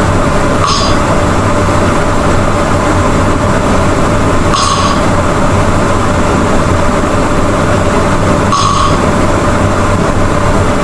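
A person snoring loudly: a continuous rough rumble, with a short, higher-pitched hiss coming back about every four seconds, three times.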